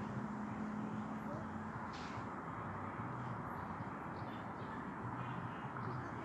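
Steady outdoor background noise with a faint low hum, and a few brief faint higher-pitched sounds about two seconds in and again around four to five seconds.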